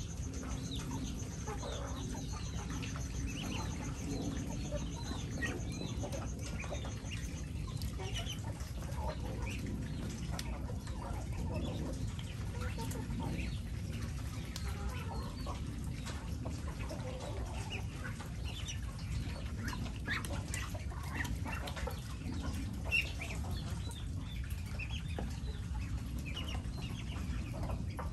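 Flock of chickens and Muscovy ducks clucking and calling, short scattered calls throughout over a steady low background noise. A thin, high pulsing buzz runs through the first seven seconds or so.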